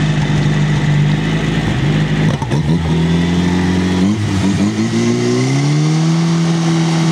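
Portable fire pump engine running steadily, its note breaking up about two seconds in, then climbing over a couple of seconds to a higher, steady speed as it is throttled up to drive water through the hose lines.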